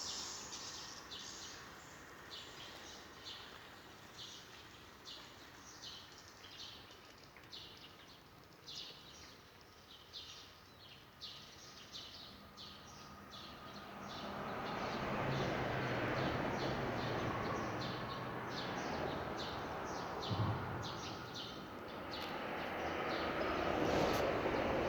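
A bird calling with short, high chirps repeated one to two times a second. About halfway through, a rising rushing noise with a low engine hum comes in, like a motor vehicle passing, and it swells again near the end.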